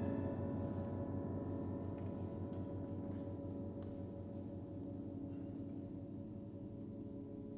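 A contemporary chamber ensemble's chord ringing out and slowly fading, several steady held tones dying away together. A few faint clicks sound in the hall.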